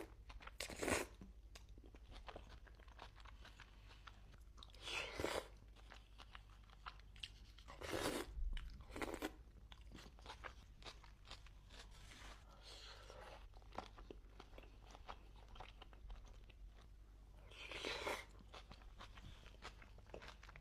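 A person eating close to the microphone: continual wet chewing and crunching, with about six louder bites spread through.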